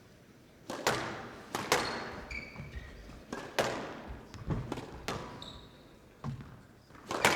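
Squash rally: the ball cracking off rackets and the court walls, about a dozen sharp, echoing hits at irregular intervals of roughly half a second to a second, with a couple of short high squeaks of shoes on the court floor.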